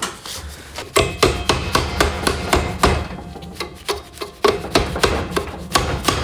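A run of hammer blows about three a second, starting about a second in, with a pause of about a second near the middle: knocking at a jammed rear wheel axle to drive it out.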